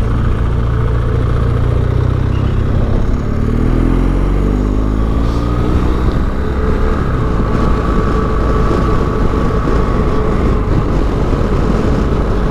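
BMW GS motorcycle engine accelerating, its note climbing from about two and a half seconds in and then holding steady while cruising, over a rush of wind and road noise.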